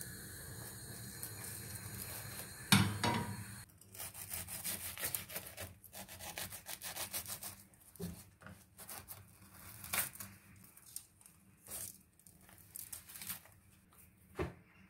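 A single loud knock, then a long run of irregular rubbing and scraping strokes on wood, with another knock near the end.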